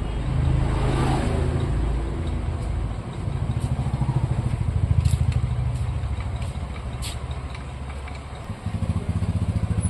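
A motorcycle engine running with a fast, even pulse, growing louder to about halfway and easing off toward the end, with a few sharp metallic clicks.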